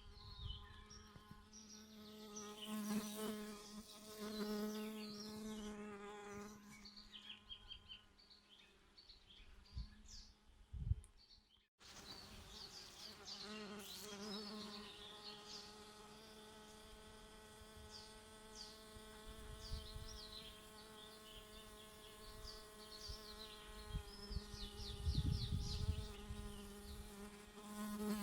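Honeybees buzzing steadily as they forage at flowers, with birds chirping and singing in the background. The sound breaks off briefly about twelve seconds in.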